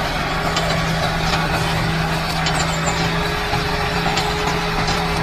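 Tractor motor running steadily with an even hum while it pulls a tine cultivator through soil.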